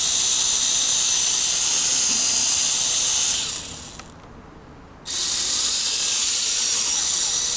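WL Toys V262 quadcopter's brushed motors and propellers running with a steady high whine and hiss, dying away about three and a half seconds in and spinning up again sharply about five seconds in. One motor, the black one on the left, is weak, which the owner puts down to play from worn plastic.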